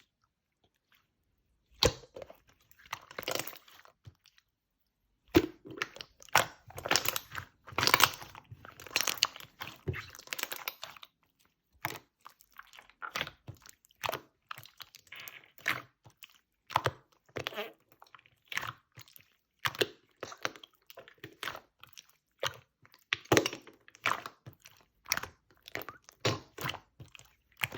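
Light pink clear slime squished and pressed by hand, making sticky clicks and small bubble pops. After a short quiet start comes a dense run of clicks, then separate presses about once a second.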